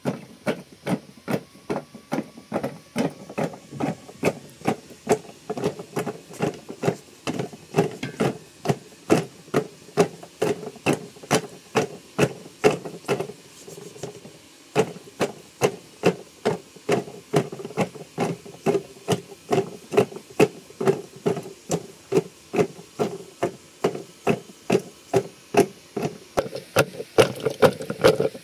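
A wooden stick plunged up and down in a white plastic jar of milky liquid, hand-churning it: a steady run of knocking thuds, about two a second, with a short break about halfway through.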